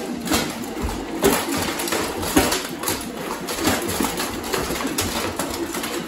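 Armour clanking and knocking in irregular hits and scuffs as two fighters in metal armour grapple and punch each other.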